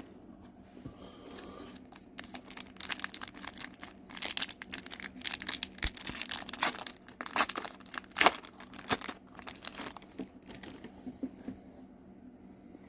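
Foil wrapper of a Pokémon card booster pack being torn open and crinkled in the hands, an irregular run of crackles and rips that is busiest in the middle and dies down near the end.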